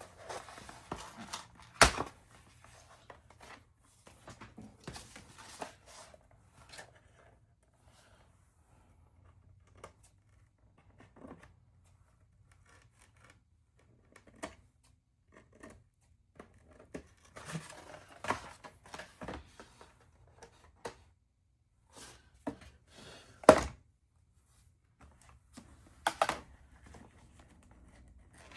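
Hand crafting work on foam board: short bouts of scraping and cutting strokes with a blade or scissors, scattered small clicks, and a few sharp knocks of tools or pieces set down on the table, the loudest about two seconds in and near the end.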